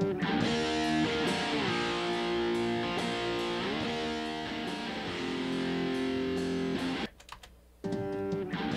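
Recorded electric guitar track playing sustained chords, heard through Cakewalk's Sonitus compressor set to its dbx 165 preset (40 ms attack, 200 ms release). About seven seconds in, the playback cuts out for under a second and then starts again as the loop restarts.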